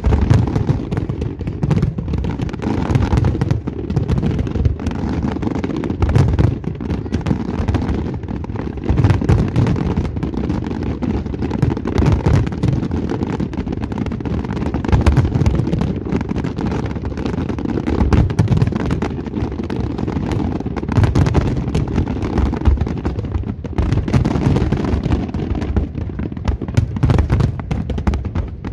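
Fireworks display: aerial shells bursting in a dense, unbroken barrage of overlapping bangs, several a second.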